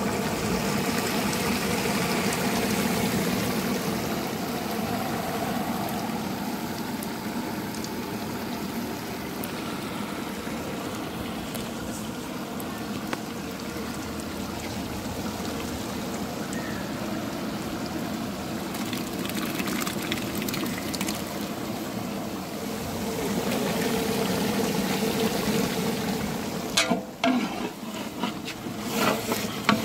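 Large pot of chicken gravy boiling with a steady bubbling rush. Near the end a long metal ladle stirs it, knocking and scraping against the aluminium pot several times.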